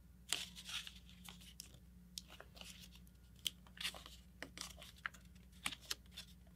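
A sheet of paper rustling and crackling in quiet, scattered crackles as fingers fold it over and press a crease into a paper airplane.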